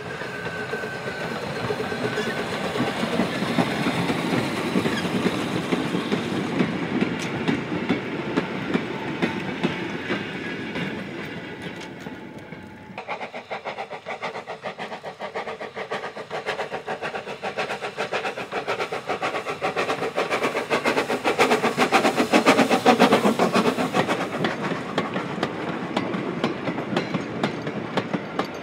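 SECR P class 0-6-0T steam tank engine working a short goods train, its exhaust a steady rush at first. About halfway through it changes to a fast, even run of exhaust beats that grows loudest as the engine passes, followed by the goods wagons rolling by with a clickety-clack over the rail joints.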